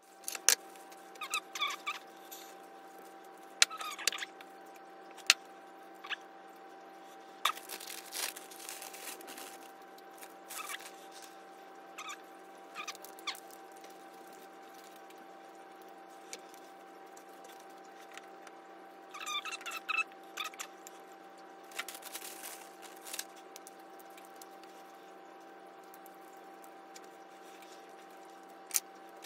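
Crisp fresh lettuce leaves rustling and squeaking as they are handled and laid out on a wooden cutting board, in scattered bursts, over a steady low hum.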